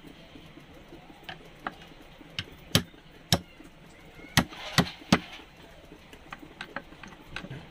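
A screwdriver clicking and tapping against a vacuum brake booster's piston as the lock is fitted onto it: a string of about ten short, sharp clicks at uneven intervals, the loudest in the middle stretch.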